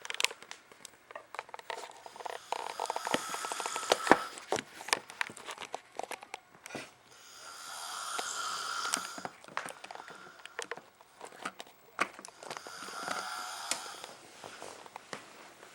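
A person snoring in sleep: three long snoring breaths about five seconds apart, with scattered sharp clicks and crackles between and through them.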